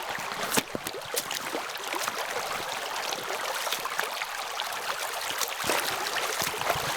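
River water rushing and splashing over rocks, a steady dense hiss full of small splashes.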